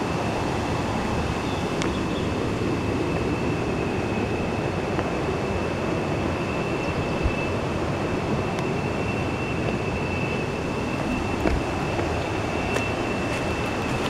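Steady rush of river water flowing over rocks, with a faint steady high tone running through it.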